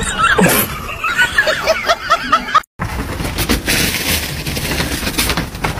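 A person giggling in quick, high, wavering bursts, which cut off suddenly. Then comes an even rustling noise with scattered light knocks.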